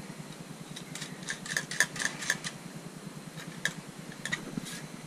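Small metal clicks and clinks of a bolt and washers being handled and fitted through the mounting bracket of a clear plastic motorcycle fly screen, a quick cluster about a second in and a few single clicks later, over a steady low hum.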